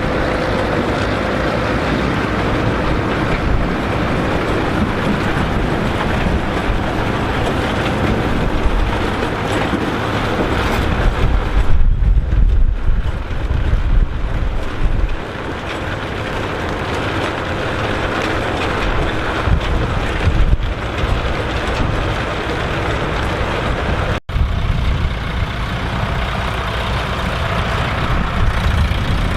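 Massey Ferguson 3070 tractor's diesel engine running steadily during sugar beet harvesting, with a heavier low rumble for a few seconds about twelve seconds in. The sound breaks off for an instant about twenty-four seconds in.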